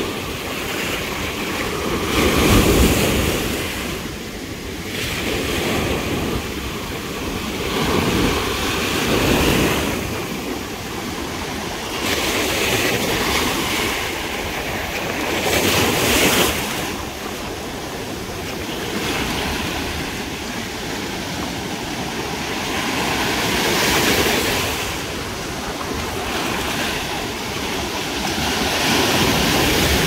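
Ocean surf breaking close by: a continuous rushing wash of foam that swells louder every few seconds as each wave breaks.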